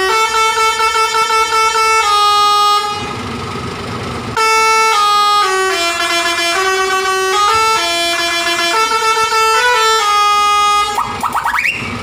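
Scania 124L lorry's musical 'telolet' air horn playing a tune, one note after another stepping up and down. It breaks off for about a second and a half around three seconds in, then resumes. Near the end it gives way to wavering, rising and falling tones.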